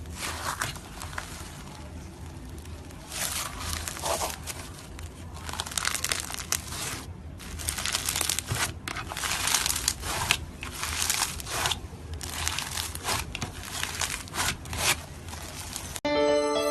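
Slime being squished and stretched by hand, with irregular crackling and popping that grows dense after about three seconds.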